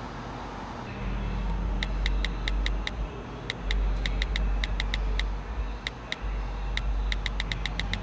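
Smartphone on-screen keyboard clicking as a text message is typed: an irregular run of short, crisp key-tap ticks in quick groups, starting about two seconds in, over a steady low rumble.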